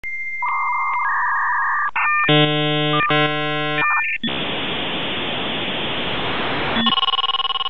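Dial-up modem handshake: a high answer tone broken by short regular gaps with warbling chirps beneath it, then two loud chords of many evenly spaced buzzing tones. About four seconds in comes a long, loud hiss, which near the end gives way to a steady buzzing tone.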